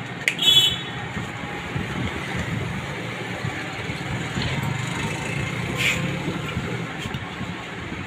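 A plug pushed into a socket on a switchboard, giving a short scraping click about half a second in, followed by a steady low background hum.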